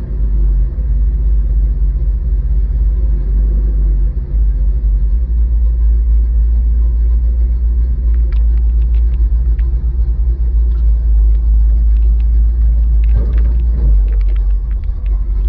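1977 Chevrolet Scottsdale pickup's engine running under load in first gear, heard from inside the cab as a steady deep rumble. Scattered clicks and rattles join in from about eight seconds in.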